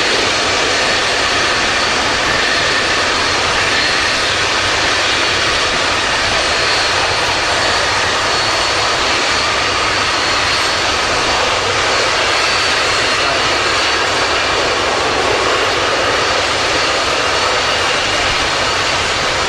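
Antonov An-225 Mriya's six D-18T turbofan engines running as the aircraft rolls past on the ground: a steady, loud jet rush with a thin high whine over it, unchanging throughout.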